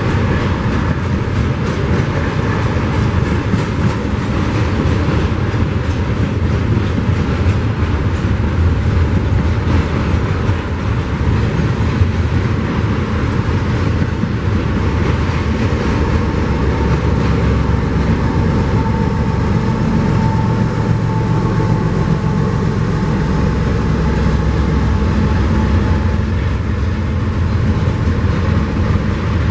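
Double-stack intermodal freight train passing close by: a loud, continuous noise of steel wheels running on the rails under the container well cars.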